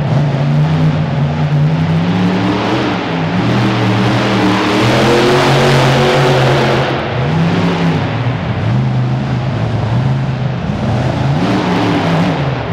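Monster truck's Hemi V8 engine revving hard and easing off again and again, its pitch climbing and dropping several times. It is loudest about five to six seconds in.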